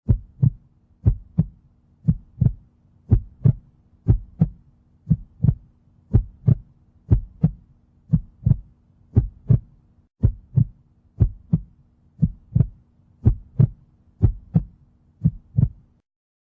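Heartbeat sound: a steady double thump, lub-dub, about once a second, starting and stopping abruptly.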